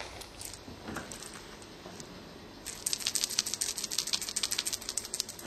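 A cat toy rattling and jingling as a Bengal cat bats at it: a dense run of rapid small clicks, starting about three seconds in and lasting about two and a half seconds.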